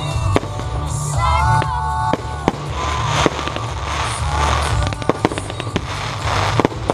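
Fireworks display: a rapid string of sharp bangs from shells launching and bursting, with dense crackling building from about three seconds in.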